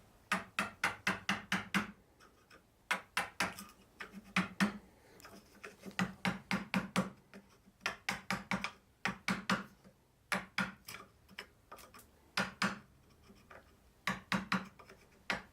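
Wood being struck with a hand tool in quick runs of sharp knocks, several a second, with short pauses between the runs.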